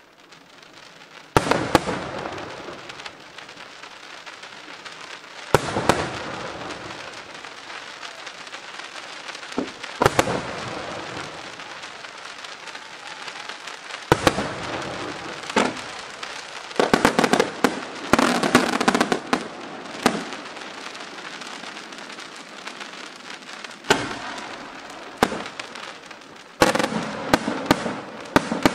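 Aerial firework shells bursting with sharp bangs a few seconds apart, with crackling between them. There is a dense patch of rapid crackles and bangs midway and a fast run of bangs near the end.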